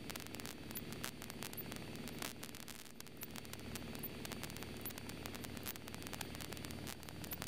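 Cessna's single piston engine droning steadily with airflow noise, heard faintly from inside the cabin under a hiss of static with small crackles.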